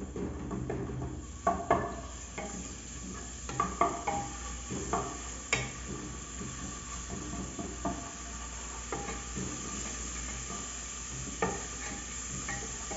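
Garlic frying in oil in a pot, with a steady sizzle that grows stronger in the second half, and a spoon knocking and scraping against the pot a dozen or so times as it is stirred.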